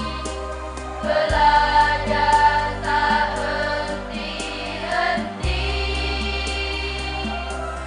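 A choir of girls and young women singing together in harmony, over sustained bass notes that change twice and a steady light ticking beat.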